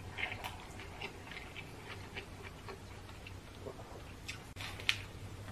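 Close-miked eating sounds: a person chewing a mouthful of food, with wet mouth clicks and lip smacks at irregular moments and a sharper smack near the end, over a faint steady hum.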